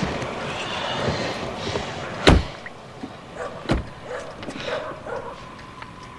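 Two sharp bangs about a second and a half apart, the first louder, over a steady background noise.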